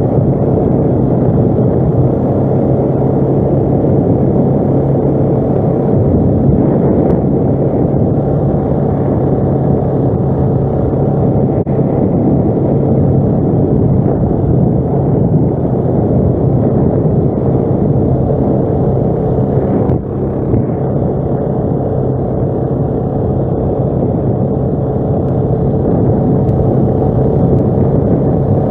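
ATV engine running at a steady speed while riding, with a short dip in level about twenty seconds in.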